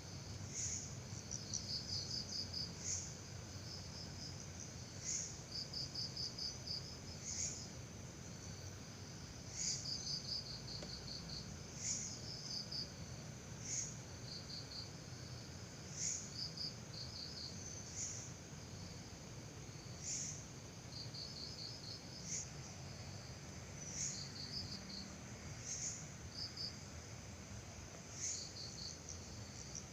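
Night insects, crickets among them, calling steadily: one high chirp repeats about every two seconds, and between them another gives short bursts of rapid pulses, over a faint low rumble.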